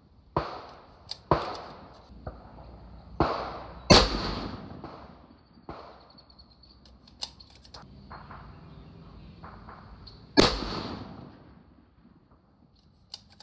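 Rifle shots: two loud 6mm Creedmoor bolt-action rifle shots about six seconds apart, each ringing out after the crack. Several quieter gunshots come before the first one.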